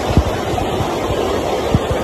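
Steady low rush of muddy floodwater flowing across the ground, with a couple of brief low thumps.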